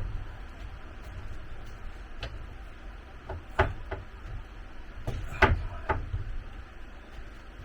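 Several separate knocks and clunks of building work, the loudest about five and a half seconds in, over a low steady rumble.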